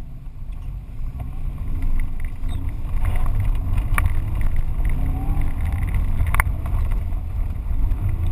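In-car sound of a Subaru Impreza GT rally car being driven: its flat-four engine runs under load over a heavy low rumble from the car, with two sharp knocks partway through and the engine note rising near the end.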